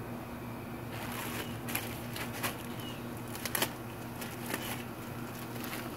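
Hot bacon grease sizzling and crackling in a cast iron pot over a propane burner, with a few sharp pops, over a steady low hum. The hiss picks up about a second in.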